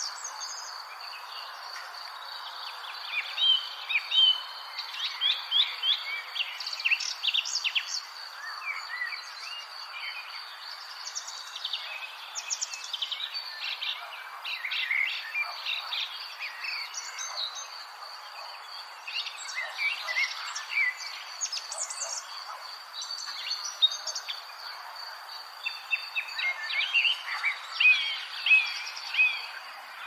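Many songbirds chirping and singing in quick, overlapping phrases, over a steady high-pitched tone and a soft hiss.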